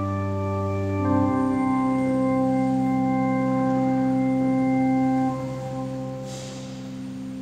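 Portable electronic keyboard on an organ voice playing the closing chords of a wedding march: a chord change about a second in, a long held chord, then the chord is released about five seconds in and the sound fades away.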